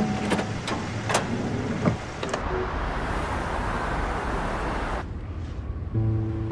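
A few sharp clicks and a knock from a minivan's doors and fittings, then steady road-traffic noise that cuts off suddenly about five seconds in. Music starts near the end.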